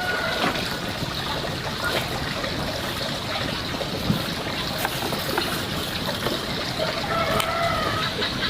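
A rooster crowing, one held call about seven seconds in, over a steady background hiss with scattered small clicks.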